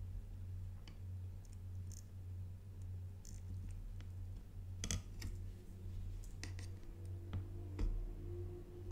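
Scattered light clicks and taps of a printed circuit board and a soldering iron being handled on a cutting mat, over a steady low hum; the sharpest clicks come about halfway through and near the end.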